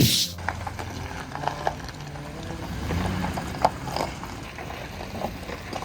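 Vehicle engine running at low speed over rough ground, with a steady low hum that shifts slowly in pitch and scattered knocks and rattles.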